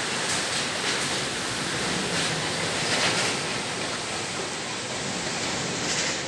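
Heavy rain pouring down in strong wind: a dense, steady hiss that swells briefly several times as gusts hit.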